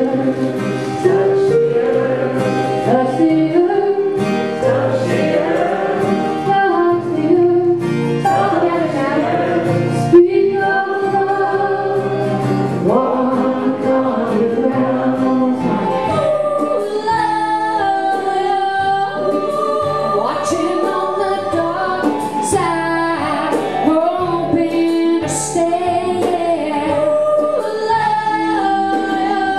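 Music with singing: several voices, a woman's among them, carry a melody over instrumental accompaniment and a sustained low bass.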